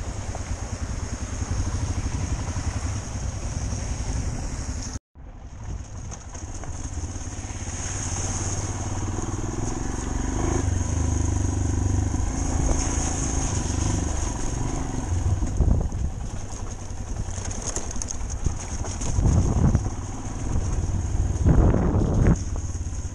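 Motorcycle engine running as the bike rides a rough dirt track, with a steady rumble and wind noise on the camera microphone. The sound cuts out for a moment about five seconds in, and there are two louder surges of engine sound near the end.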